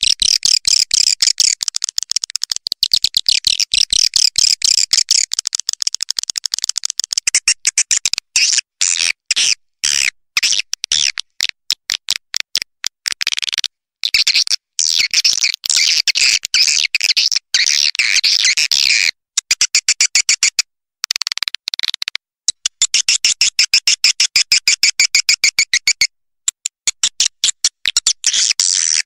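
Recorded swiftlet calls: dense trains of rapid, high-pitched chirping twitters, broken every few seconds by brief pauses.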